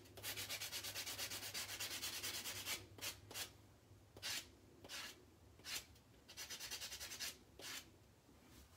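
Nail buffer block sanding a dip-powder nail: quick back-and-forth strokes, about six a second, for the first few seconds, then slower single strokes with short pauses between them and another brief quick run near the end.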